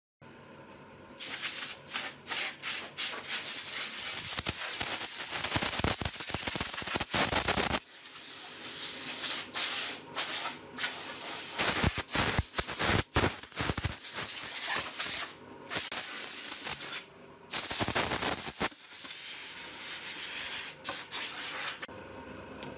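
A hand-held spray gun on a hose blasting at a television cabinet, a loud hiss in long bursts of a few seconds each with short breaks between. It eases off near the end.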